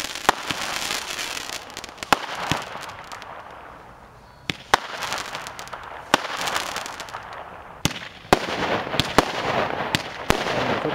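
Consumer firework batteries firing: irregular sharp bangs as shots launch and burst, over a hissing, crackling rush. It dies down about four seconds in, then a second battery starts about eight seconds in with a denser run of shots and crackle.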